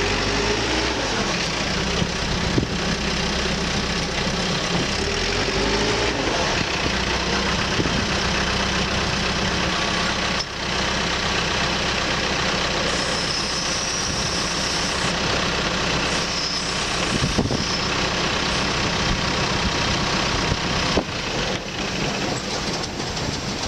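Caterpillar 430E backhoe loader's diesel engine running, its note shifting up and down several times in the first few seconds, with a few sharp knocks along the way.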